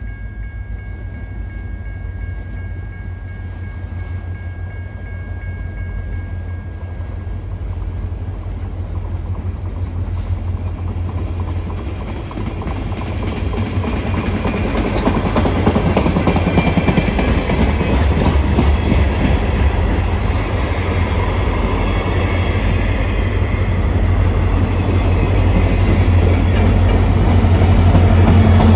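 Diesel train rumbling along the rails, with the low engine drone and the rolling clatter of wheels growing steadily louder as it approaches.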